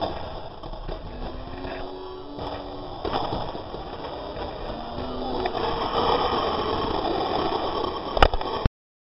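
Hockey skates scraping and rushing down an ice track, heard from a camera carried by a skater, with crowd voices behind. The noise grows louder about six seconds in, and a sharp knock comes near the end.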